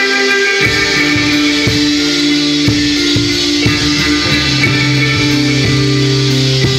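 Live instrumental post-rock band: layered, ringing electric guitars holding sustained notes, with bass and drums coming in about half a second in and drum hits landing about once a second.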